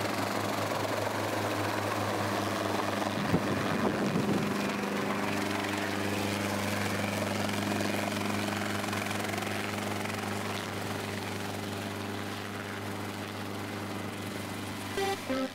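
Light Hughes/Schweizer 300-type helicopter coming in to land and sitting on the ground with its rotor still turning, a steady engine-and-rotor drone. A sharp knock comes about three seconds in, and electronic music starts right at the end.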